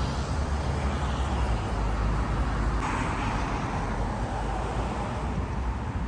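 Outdoor road traffic noise: a steady low rumble, with a vehicle passing and its noise swelling about three seconds in, then fading.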